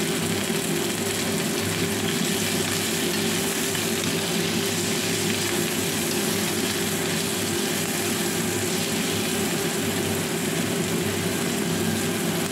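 Green beans sizzling steadily in hot oil in a nonstick frying pan as they are stir-fried, over a steady low hum.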